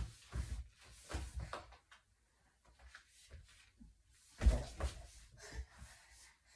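Scattered knocks and rustling of laundry being handled around a plastic laundry basket and a clothes drying rack, with one louder knock about four and a half seconds in.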